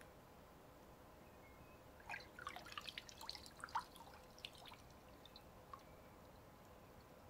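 Small water splashes and drips, heard underwater, as a hand reaches into a paddling pool and lifts out a toy submarine. There is a burst of quick plinks about two seconds in that lasts a couple of seconds, then a few single drips.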